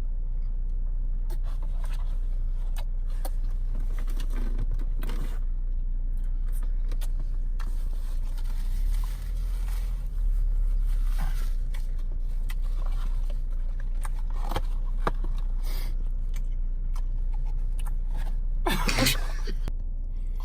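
Steady low rumble of a car's engine heard inside the cabin, with scattered small clicks and rustles and a louder rustle near the end.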